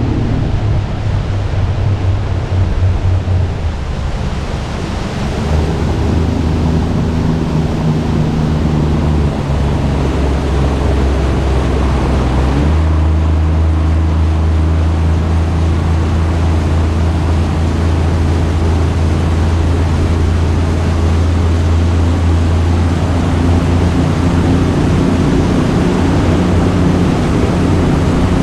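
Small outboard motor pushing a Gheenoe along, a steady low engine note under rushing wind and water. The engine note shifts about five seconds in and again about thirteen seconds in.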